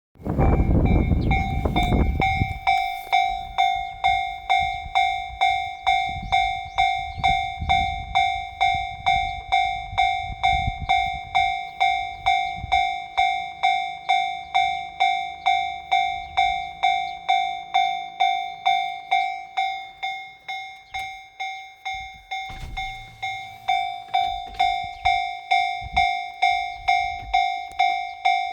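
Japanese railway level-crossing warning bell ringing a steady electronic ding, just under two strikes a second, with no break. A loud low rumble fills the first two seconds and fades out by about eleven seconds in.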